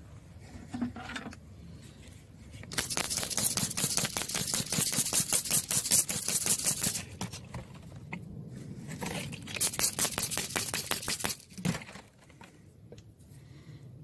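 A broken flint point being scrubbed against wet sand and mud under the fingers: rapid scraping strokes in two spells, the first about four seconds long, the second, a second or two later, about two seconds long.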